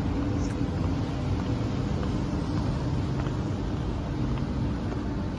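Steady city street background noise with a low, even hum.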